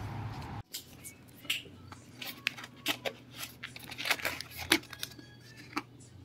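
A cardboard burger box being handled and its lid opened on a table: a string of sharp paperboard clicks, rustles and scrapes. Before that, outdoor noise cuts off abruptly under a second in.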